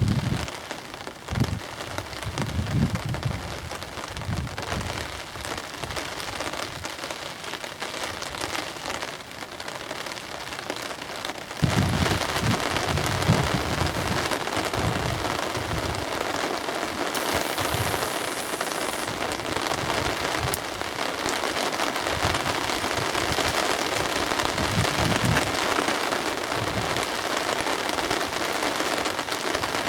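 Steady rain hissing, suddenly louder about twelve seconds in, with irregular low rumbles underneath.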